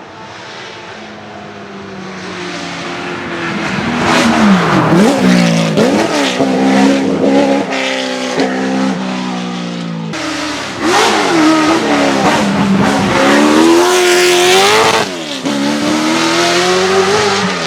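A race car's engine revving hard through the gears as it approaches and passes, the pitch climbing and then dropping sharply at each gear change. It grows louder over the first few seconds, eases briefly a little past the middle, then revs up loud again with another sharp drop near the end.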